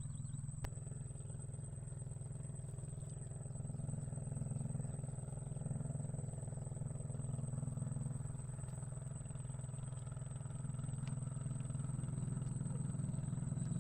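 A steady low engine drone, even throughout, with a thin steady high whine above it.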